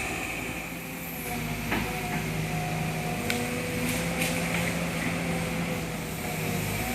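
Sumitomo SH210 hydraulic excavator's diesel engine running steadily, with a few short sharp clicks through it.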